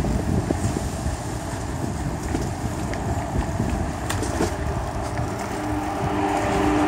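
Wind buffeting the microphone over the rumble and rattle of a bicycle rolling along a rough, cracked cycle path, with a few sharp knocks about four seconds in as it crosses onto paving. A steady hum comes in near the end.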